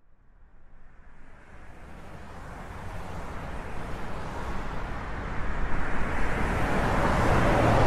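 A rushing noise that swells steadily louder and brighter over several seconds, rising out of near silence.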